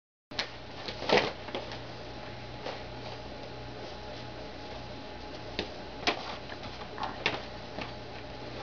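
A leather English saddle being handled: scattered soft knocks, taps and rubbing as hands press along the pommel and turn the saddle, the loudest knock about a second in and more around six and seven seconds. A steady low hum runs underneath.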